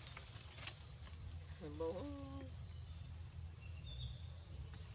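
Steady high-pitched drone of forest insects, with a short voiced call about two seconds in and a brief high chirp a little later.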